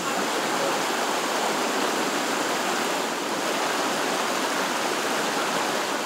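Steady rushing of a rocky mountain stream, water running over rocks.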